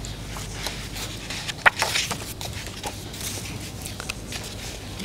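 Paper rustling as pages of a book are turned near a table microphone: irregular soft rustles and small clicks, with one sharp tap a little under two seconds in, over a steady low room hum.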